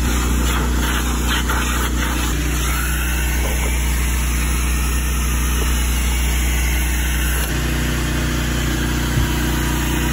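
Steady low motor hum with an even drone; its tone shifts slightly about seven and a half seconds in.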